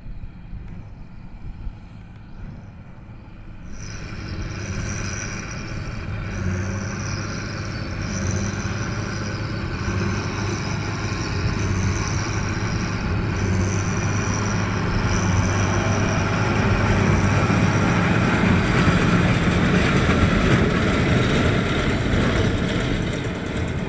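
Tractor engine running as it pulls a baler, starting abruptly about four seconds in after a low rumble, growing louder, then easing off near the end. A thin high whine rides over the engine.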